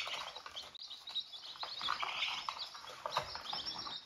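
A brooder full of young chicks peeping, many short high chirps overlapping without pause, most falling slightly in pitch. The chicks are huddled together and nervous.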